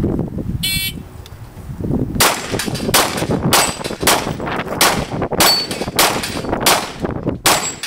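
Shot timer's start beep, then a string of about eight Glock pistol shots fired in quick succession at steel plates over about five seconds, a timed plate-rack run.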